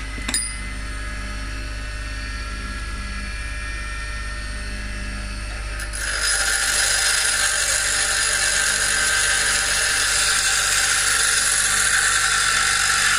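Bench grinder running with a steady hum, and a single click just after the start. About six seconds in, the steel billhook from a baler knotter is pressed against the wheel and a loud, steady grinding hiss sets in, as the part is ground to prepare it for welding.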